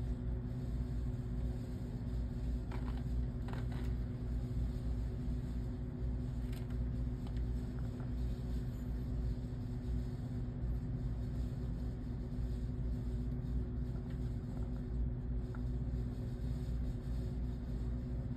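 A motor running steadily nearby: a constant low rumble with a steady hum, with a few faint clicks about three to four seconds in.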